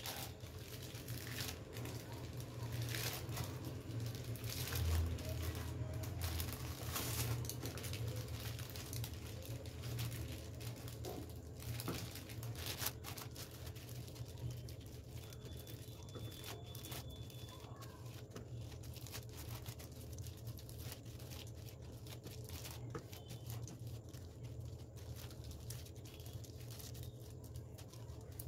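Clear plastic sheet crinkling and rustling as palms press and spread a round of stuffed dough flat on a wooden board. It is busiest in the first half and thins out later, over a steady low hum.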